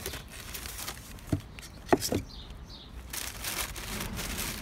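Tissue-paper wrapping rustling and crinkling as a snapback hat is unwrapped by hand, with a few brief sharp knocks in the middle, the loudest just before two seconds in. The rustling eases for a moment and picks up again near the end.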